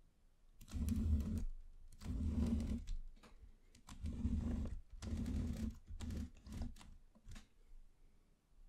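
A wooden popsicle-stick model house being turned around on a tabletop: its base scrapes and knocks against the surface in about six short pushes, each under a second.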